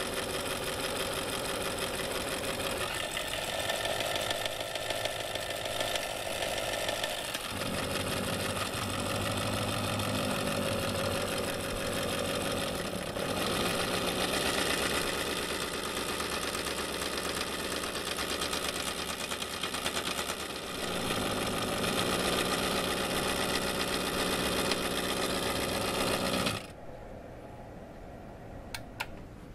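Vintage ANFOE toy electric motor, a coil driving a star-shaped iron rotor, running with a fast, even buzzing rattle. Its tone shifts several times as the supply voltage is changed. It cuts off suddenly near the end, followed by a couple of faint clicks.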